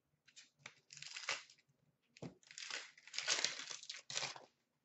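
Plastic wrapper of an Upper Deck hockey card pack crinkling in bursts as it is picked up and torn open, loudest in the second half.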